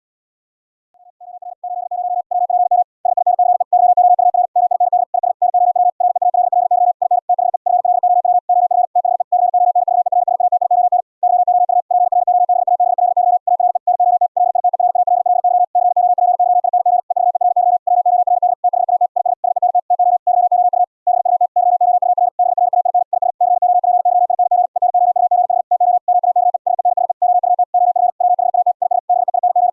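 High-speed (QRQ) Morse code: a single steady mid-pitched tone, keyed so fast that the characters run together with only brief gaps. It swells up about a second in and then keys on steadily.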